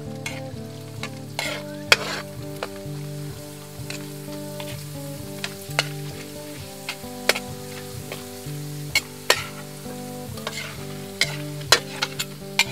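Thin kalabasa (squash) slices sizzling as they deep-fry in oil in a metal wok. A metal spatula scrapes and clinks against the wok many times as the slices are stirred.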